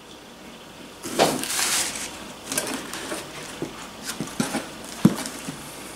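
Cardboard box and card packaging being handled: a loud rustle about a second in as items are lifted out, then scattered light taps and knocks, with one sharper knock near the end.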